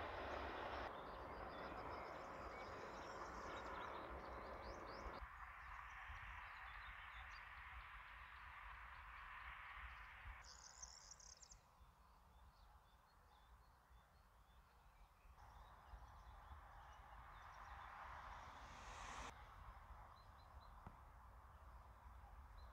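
Faint rural ambience: birds chirping over a steady low rumble, with the background changing abruptly several times.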